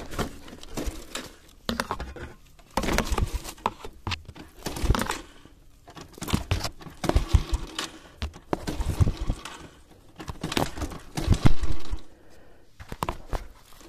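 Irregular crunching, scraping and rustling of dry leaves and gravel, with sharp knocks and clicks close to the microphone.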